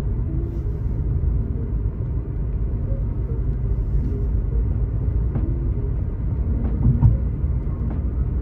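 A car driving at speed, heard from inside the cabin: a steady low rumble of road and engine noise, with a few faint clicks about five to seven seconds in.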